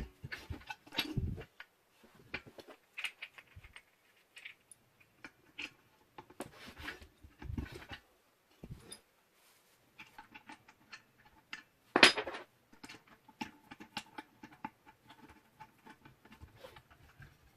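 Handling noises from parts of an angle grinder stand: scattered clicks, knocks and rustling, with one louder clatter about twelve seconds in.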